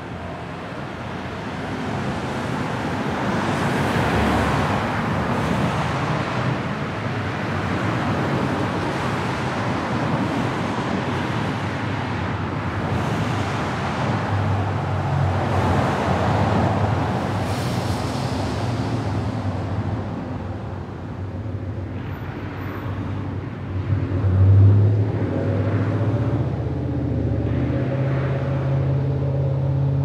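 Road traffic: cars passing in a continuous stream, each swelling and fading as it goes by. A steady low hum sets in about halfway, and the loudest moment is a brief swell a little past two-thirds through.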